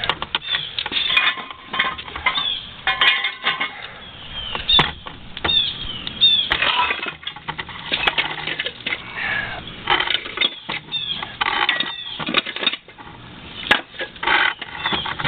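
A heavy, corroded sterndrive gimbal housing being levered and flipped over on concrete with metal bars: irregular scraping, clanks and knocks of metal on metal and on concrete.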